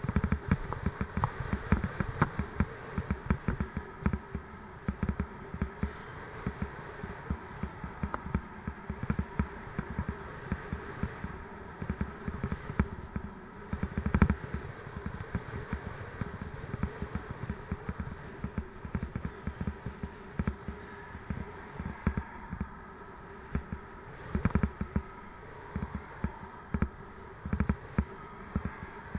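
A Raleigh Mustang Elite bicycle and its mounted camera rattling and knocking rapidly and irregularly as they jolt over rough road surface while riding, over a steady road hum.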